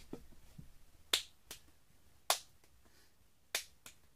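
Single sharp hand claps, three about a second apart, each made while two juggling balls are in the air in a two-ball wave. A softer tap follows each clap as the balls land back in the hands.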